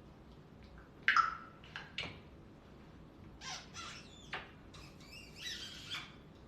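Pet parrot making harsh squawks and calls: a loud one about a second in, another near two seconds, then a run of calls from about three and a half to six seconds, one with a short sliding whistle.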